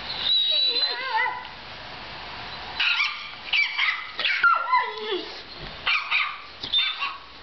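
A small puppy's high-pitched yips and short barks, several sliding down in pitch, played through a laptop's speakers. They come thick and fast from about three seconds in.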